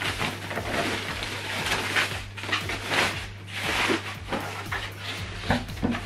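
Plastic and foam wrapping rustling and crinkling steadily as it is pulled off a subwoofer by hand, with scattered small ticks and scrapes.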